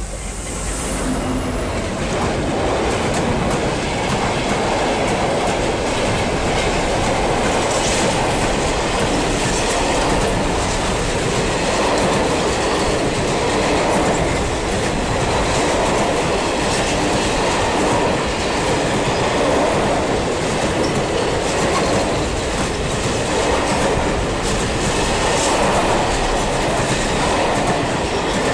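A container freight train hauled by a Renfe class 335 diesel locomotive (Vossloh Euro 4000) passes close by. Its noise builds over the first couple of seconds as the locomotive goes past, then the wagons give a steady rumble and clickety-clack, swelling about every two seconds as the bogies pass.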